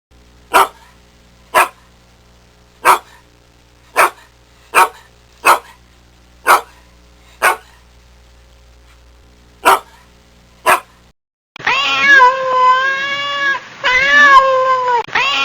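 A run of about eleven short, sharp sounds at uneven intervals over a steady low hum. About twelve seconds in, a domestic cat starts meowing: three long, drawn-out meows, each dipping and rising in pitch.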